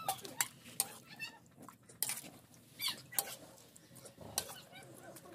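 Metal ladle scooping curry out of a wok into an aluminium pot, clinking and scraping against the metal many times, with a few short high-pitched cries in between.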